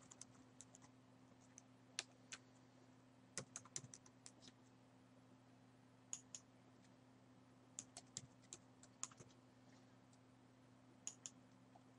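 Computer keyboard typing, faint, in short bursts of keystrokes with pauses between them, over a steady low electrical hum.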